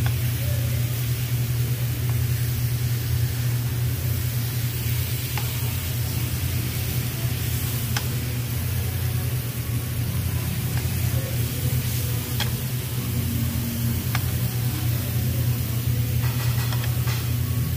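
Marinated meat, shrimp and onion sizzling on a tabletop Korean barbecue grill, over a steady low hum. A few light clicks of metal tongs sound as the food is turned.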